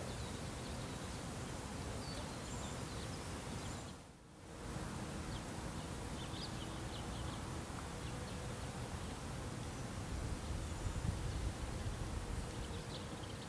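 Steady outdoor background noise, heaviest in the low end, with faint short high chirps scattered through it. The noise dips out briefly about four seconds in.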